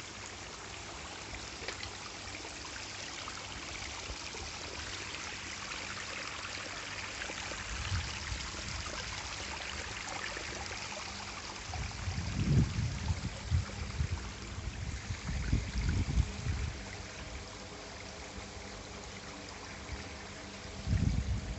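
Artificial garden waterfall: water splashing and trickling steadily over the rocks into its pool. Several bouts of low rumble come in, about twelve seconds in and again near the end, louder than the water.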